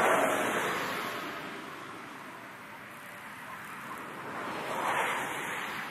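Two vehicles passing by one after the other. Each is a rush of engine and tyre noise that swells and fades, the first right at the start and the second, a little quieter, about five seconds in.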